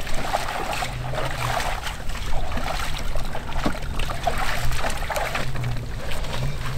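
Shallow water sloshing and trickling around wading legs and a small boat's hull at the water's edge, with scattered light splashes over a steady low wind rumble.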